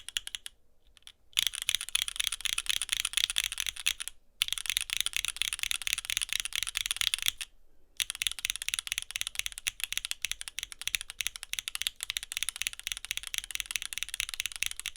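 Fast typing on a mechanical keyboard with Gateron Khonsu full-POM linear switches, a steady run of clacks as the stems bottom out on the housing rails. The typing breaks off briefly three times: about a second in, around four seconds in, and near seven and a half seconds.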